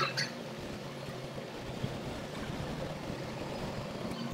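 Steady background hiss with a faint low hum: room noise under a pause in the speech.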